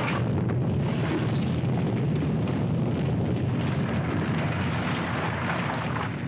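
Earthquake sound effect: a continuous low rumble of caving-in stonework and falling rubble, easing slightly near the end.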